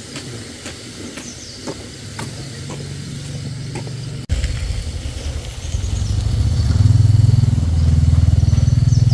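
A small engine running with a low, even pulse. It comes in suddenly about four seconds in and grows louder a couple of seconds later, after a few light clicks and knocks.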